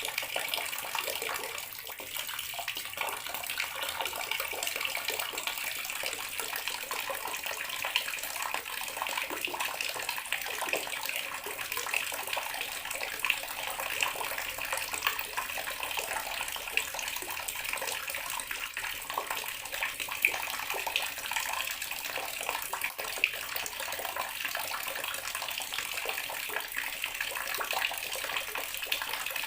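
Bathroom water tap running steadily, the stream splashing into the basin or tub below with small irregular spatters.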